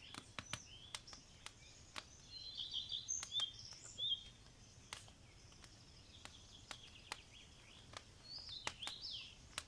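Small songbirds chirping and twittering in short bursts, loudest about two to four seconds in and again near the end, over irregular sharp clicks.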